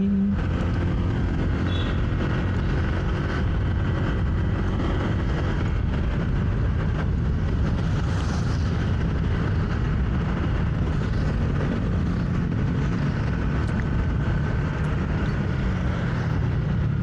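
Steady road and wind rumble from riding a motorcycle, with the engine underneath and surrounding traffic noise, picked up by a wireless mic on the rider's helmet. The engine note comes through more clearly and rises a little in the last few seconds.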